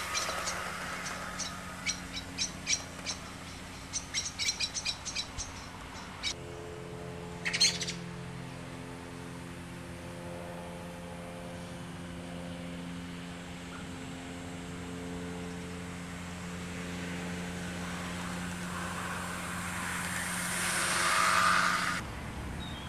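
Bachmann Class 47 model diesel locomotive running on garden-railway track, a steady hum that swells as it comes close near the end. Birds chirp repeatedly over the first six seconds.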